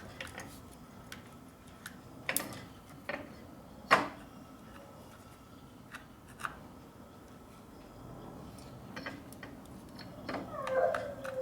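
Scattered clicks and knocks of parts being handled and set against a motorcycle during a test fit, with one sharp knock about four seconds in the loudest.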